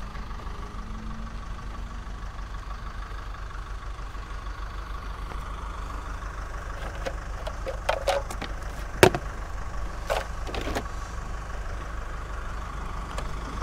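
Car engine idling steadily. A few sharp knocks and clicks come about eight to eleven seconds in.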